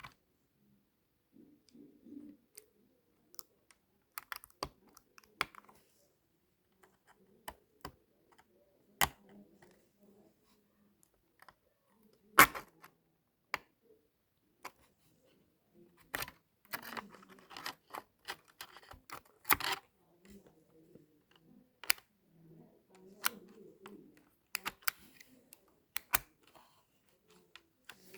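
Irregular clicks and knocks of computer parts being handled, with one sharp knock about twelve seconds in and a denser run of clicks around seventeen to twenty seconds in.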